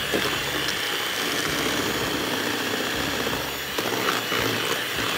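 Electric mixer running steadily at one speed, beating butter, brown sugar and egg into cookie dough.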